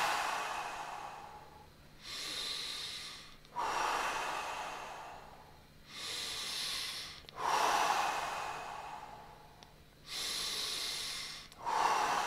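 A person taking slow, deep breaths in and out as a guided breathing exercise, about one full breath every four seconds. Each breath has a short intake followed by a longer exhale that slowly fades.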